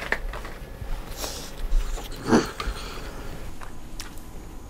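Small cardboard slider boxes rustling and clicking as they are picked up and opened by hand, with one short, falling vocal sound from the eater about two seconds in.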